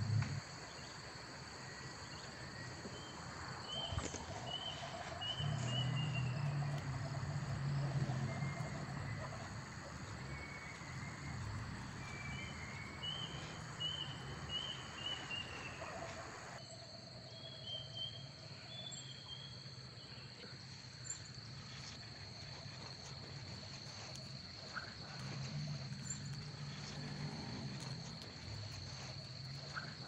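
Soft handling and creasing of origami paper being folded by hand, with a few faint clicks and low bumps against the table. Behind it runs a steady high-pitched whine with small groups of short chirps, and the background changes abruptly about sixteen seconds in.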